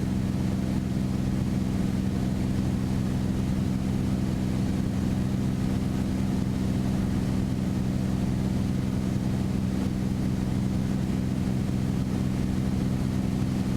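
Steady cruise drone of a Beechcraft Bonanza's six-cylinder piston engine and propeller, heard from inside the cabin, holding an even pitch throughout.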